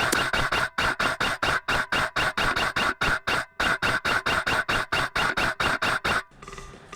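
Airsoft electric gun firing in rapid succession, about six sharp shots a second with a short break or two, stopping about six seconds in.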